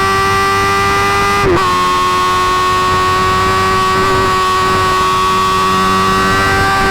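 Suzuki GSX-R1000 inline-four engine through an M4 GP Series slip-on exhaust, running loud at high, steady revs. There is a brief dip in pitch about a second and a half in, and the pitch creeps slightly higher toward the end.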